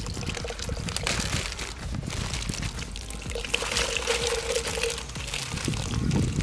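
Chicken broth pouring from a carton into a cast-iron Dutch oven of soup, splashing into the liquid, while diced potatoes are tipped in from a plastic bag.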